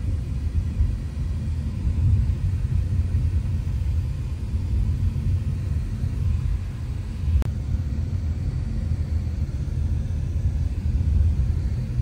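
Road noise inside a moving car: a steady low rumble of engine and tyres, with one short click past the middle.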